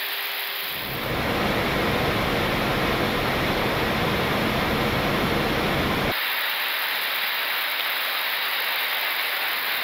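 Steady rushing airflow noise of an airliner in flight, heard from inside the aircraft. A low rumble under the hiss comes in about a second in and cuts off suddenly about six seconds in.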